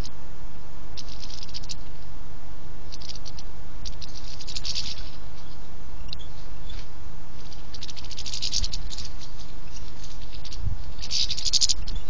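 Small birds (goldfinches, house sparrows) feeding at a plastic tube seed feeder: several short bursts of rapid tapping and rattling as beaks work seed at the feeder ports, over a low steady rumble.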